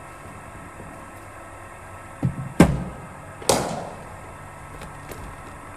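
A delivery in bowling-machine cricket practice: a dull thump, then a sharp crack of the cricket ball, and about a second later another sharp knock that rings out briefly.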